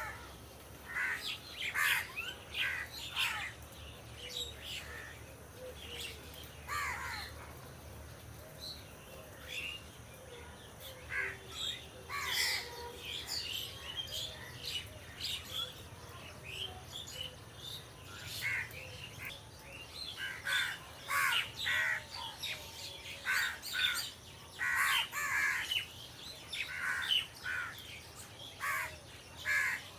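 Crows cawing in many short, overlapping calls, busiest in the second half, with some higher chirps mixed in.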